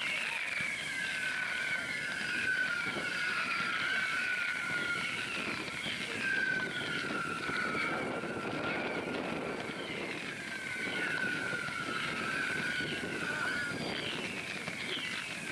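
Whistling fireworks shrieking one after another, many overlapping whistles that each slide slowly down in pitch, over a low rumble of wind on the microphone.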